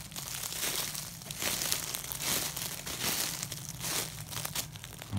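Footsteps crunching through dry leaves and undergrowth off the trail, at a steady walking pace of a crunching step a little under every second.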